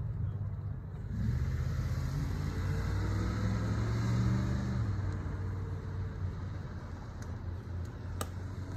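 A car driving past on the street, its engine and tyre noise swelling to a peak about four seconds in and then fading. A single sharp click near the end.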